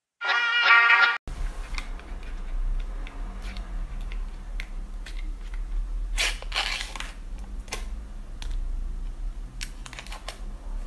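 A short musical jingle for about a second at the start, then small clicks and crinkles of a plastic jelly cup and its peel-off lid being handled and pulled back, with a louder crackling rustle around six seconds in, over a low steady hum.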